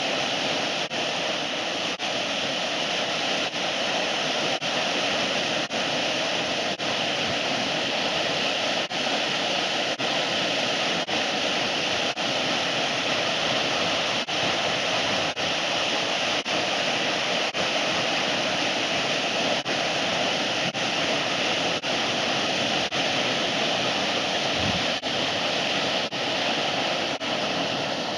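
Waterfall rushing steadily, with brief slight dips in level about once a second.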